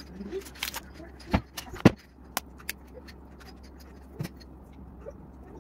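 Sharp clicks and knocks from kitchen items being handled and set down on a counter, about half a dozen, the loudest just under two seconds in, over a steady low hum.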